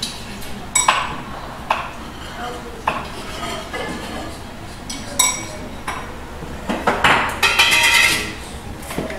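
Kitchen clatter of dishes, pots and utensils knocking and clinking as food is prepared, separate knocks with a ringing tail every second or so, then a busy run of clattering about seven seconds in.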